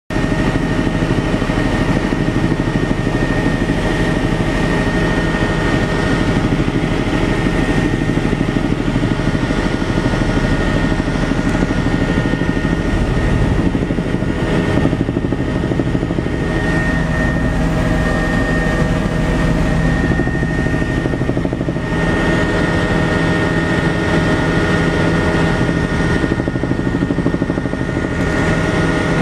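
Helicopter in flight heard on board: the steady, loud drone of engine and rotor with a constant high whine over it.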